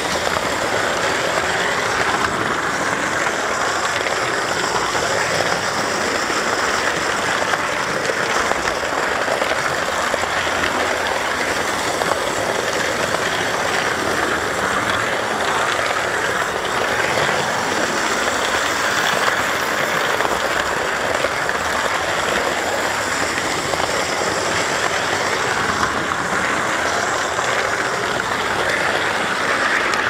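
Model train running on the layout, heard close from a camera wagon riding the track: a steady rolling rush of wheels on rail.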